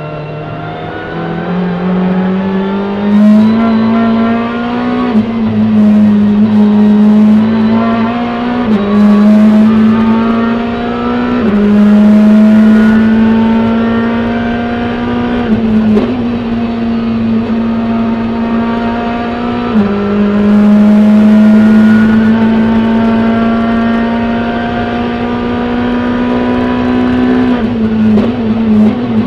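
Lada Granta WTCC race car's 1.6-litre turbocharged four-cylinder engine at full throttle, heard on board. Its pitch dips briefly at each of several quick upshifts, then holds high and steady for long stretches. Near the end the pitch drops and wavers.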